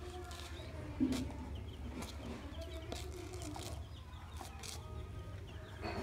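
Baby chicks peeping, a steady stream of short high cheeps with some longer, lower calls among them. A brief thump about a second in.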